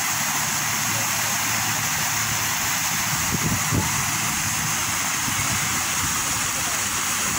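Many fountain jets spraying and splashing into a large stone basin, with water falling from the tiers: a steady hiss of falling water with a low rumble underneath.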